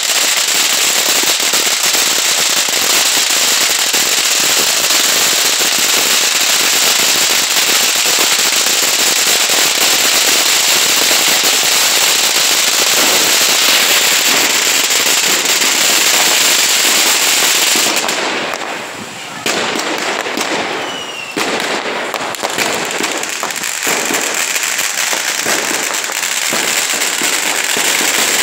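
Fireworks at a falla burning: spark fountains and strings of firecrackers crackling and banging densely and without pause. The noise thins out briefly about two-thirds of the way through, then picks back up.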